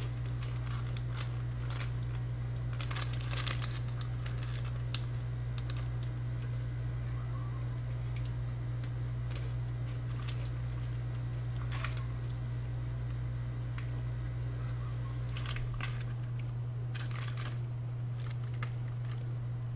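Scattered short crinkles and clicks of something being handled, heaviest about three seconds in and again near the end, over a steady low electrical hum.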